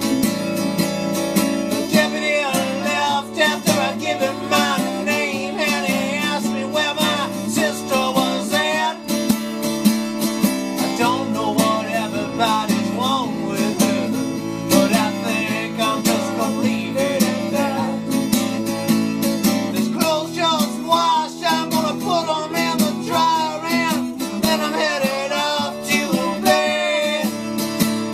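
Instrumental break in a folk-rock song: strummed acoustic guitar with a wavering lead melody played over it.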